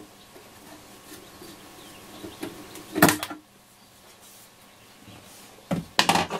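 Handling noise from a screwdriver and small metal screws on the workbench while the case screws of a Yaesu FRG-7700 receiver are taken out: a sharp click at the start, one louder clattering knock about three seconds in, and a quick run of clicks and clatter near the end.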